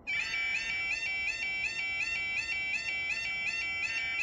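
Level crossing yodalarm warning sounders switching on suddenly and sounding a fast, repeating warbling tone, several tones overlapping. One of the alarms is faulty and gives a strange-sounding tone.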